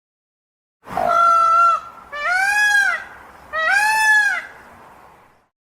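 A large bird calling three times, each call a little under a second long. The first call holds a level pitch; the next two rise and then fall.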